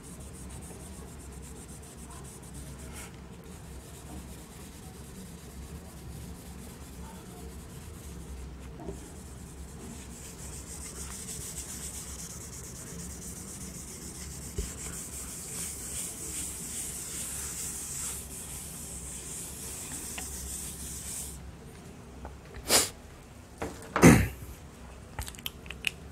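Handheld whiteboard duster rubbing across a whiteboard, erasing marker writing: a steady, soft scrubbing hiss that grows stronger partway through and stops suddenly. Near the end come two short, sharp, loud sounds.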